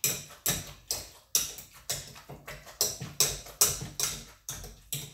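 Hand masher pounding avocado in a bowl for guacamole, knocking against the bowl in a steady rhythm of a little over two strokes a second.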